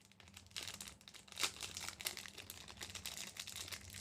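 Jewellery packaging being handled and unwrapped: irregular crinkling and rustling, with a louder crackle about one and a half seconds in.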